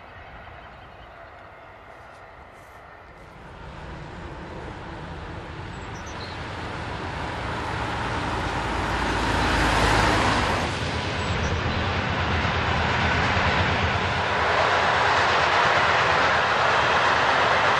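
Freight train of hooded steel wagons, hauled by an electric locomotive, approaching and then rolling steadily past. About ten seconds in, a van drives past close by, the loudest moment, before the train's steady rolling noise takes over.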